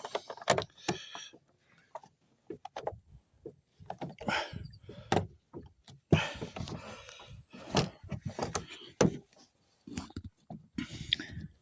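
Handling noises: a string of irregular clicks, knocks and rustles as things are moved about by hand.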